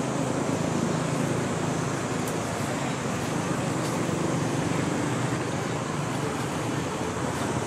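Steady outdoor background noise: a constant low rumble with a hiss over it, without distinct events or clear animal calls.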